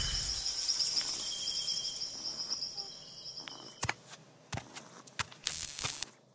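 Cartoon night-time ambience of crickets chirping steadily, fading out a little past halfway. It is followed by a scattering of sharp clicks and taps.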